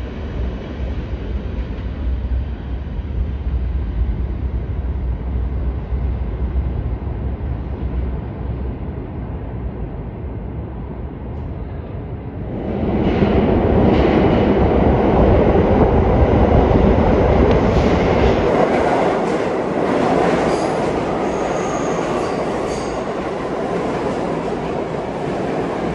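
New York City subway train with R68-series cars in an underground station: a low rumble that grows much louder about halfway through as the train comes in. The cars then pass close by with repeated wheel clacks and a brief high wheel squeal.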